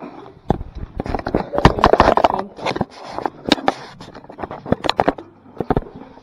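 Irregular knocks, clicks and scraping of handling noise as the camera is picked up, rubbed and moved, loudest about two seconds in and again around the middle.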